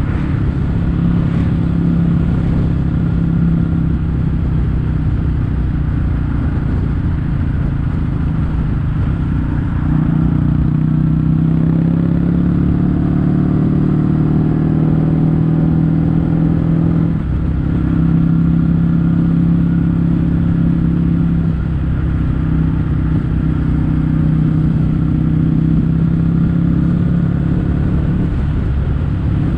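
Kawasaki W800's air-cooled parallel-twin engine running at cruising speed through stainless-steel Cabton-style aftermarket silencers, a steady exhaust note whose pitch shifts a few times, with a brief dip about two-thirds of the way through.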